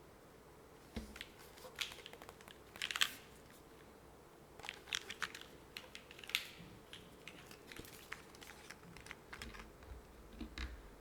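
Typing on a Geonworks F1-8X V2 mechanical keyboard with Cherry HG Black linear switches and GMK Classic Beige keycaps, on an aluminium plate with O-ring gasket mounting and no foam. Keystrokes start about a second in and come in short irregular runs, the loudest about three seconds in.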